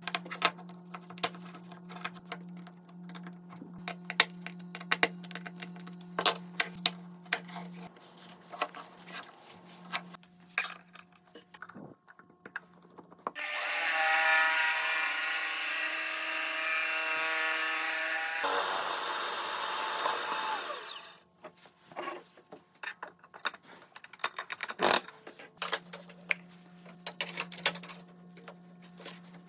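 Clicks and knocks of wood and tools being handled over a low steady hum. An electric power tool's motor runs loudly for about five seconds and then winds down.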